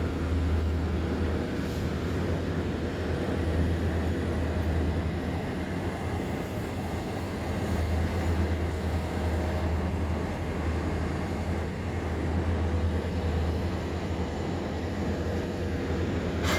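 A steady low rumble of vehicle engines and traffic, with a continuous hiss of outdoor urban noise.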